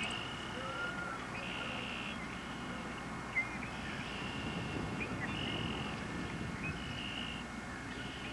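Outdoor ambience with a steady background hiss, over which high calls repeat about once a second, each lasting half a second or so, along with a few short bird chirps. There is a single brief knock about a third of the way in.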